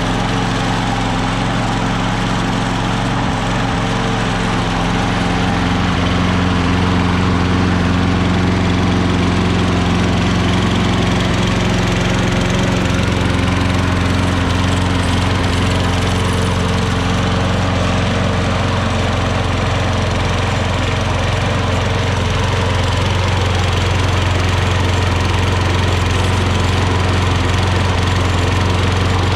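Craftsman self-propelled lawn mower's small gas engine running steadily, staying on with the control lever held down. Its tone shifts slightly about 5 and again about 13 seconds in, then holds.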